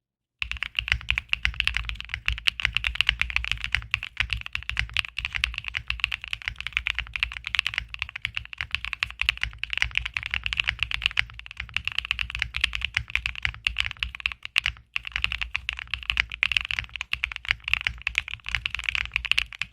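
Fast, continuous typing on a neo65 mechanical keyboard fitted with HMX Hibiscus switches: a dense run of keystroke clacks that starts about half a second in and pauses briefly once, about three-quarters of the way through.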